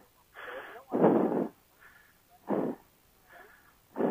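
A person breathing hard, close to the microphone: quieter in-breaths alternate with louder out-breaths about every second and a half, the panting of someone out of breath from heavy exertion.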